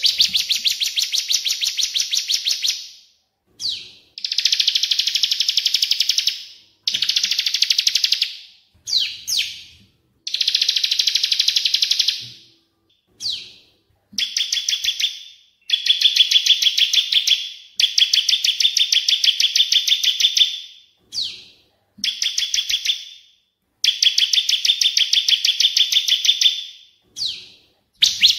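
High-pitched bird song from a masteran (cage-bird training) recording of cililin (crested jay) and ciblek (bar-winged prinia). It comes as a series of fast, rattling trilled phrases, each about half a second to three seconds long, repeated with short pauses between them.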